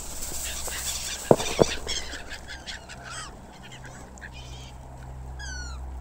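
Gulls calling, a run of short, quick calls and then a few downward-sliding cries near the end. Two sharp knocks a little over a second in are the loudest sounds.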